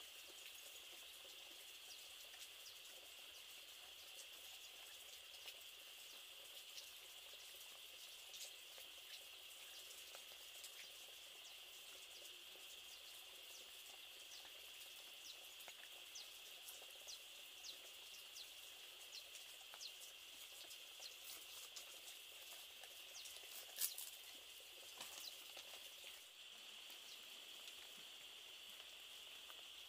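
Faint outdoor forest ambience: a steady, high-pitched drone of insects, with scattered light clicks and taps and one sharper click about 24 seconds in.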